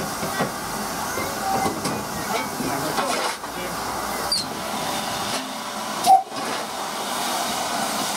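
Steam hissing steadily in the cab of a standing GWR 5205-class 2-8-0 tank locomotive, with light clicks and knocks from the footplate. A brief loud knock comes about six seconds in.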